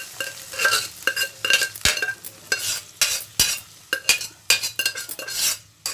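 A ladle stirring in a kadai, scraping and clinking against the pan in repeated strokes about two or three a second, as cooked beans are mixed into the onion masala.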